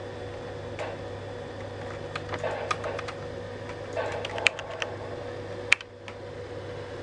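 Irregular clicks of keys being pressed on a Wyse PC keyboard, a few at a time, over a steady electrical hum.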